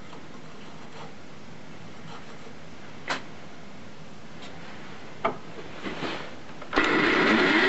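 A few light clicks and knocks of a steel knife blank being set and shifted on the grinder's steel chuck. Near the end the grinding machine's motor switches on and its abrasive wheel starts spinning up, with a rising whine.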